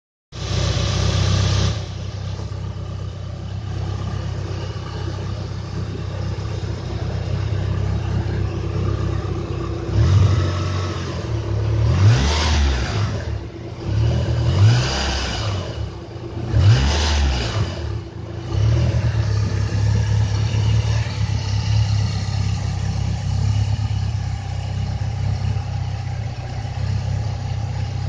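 Mitsubishi 4G63 turbocharged inline-four running with a misfire, idling and then revved up and back down several times in the middle before settling back to idle.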